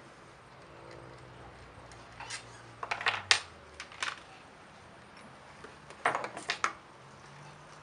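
Brush cutter handle clamp and throttle grip parts clicking and clinking as they are handled and fitted together: sharp clicks about two to four seconds in, the loudest near three seconds, and another cluster about six seconds in.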